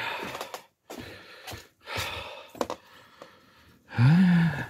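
Three breathy bursts of noise about a second apart, from wind and a man's breathing in hard frost, then a short, loud voiced grunt from him near the end.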